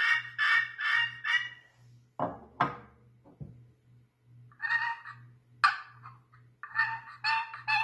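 Turkey friction pot call scratched with a mahogany striker, giving runs of short, evenly spaced hen-turkey yelps. About two seconds in come two sharper squeaks, then after a pause another run of yelps near the end.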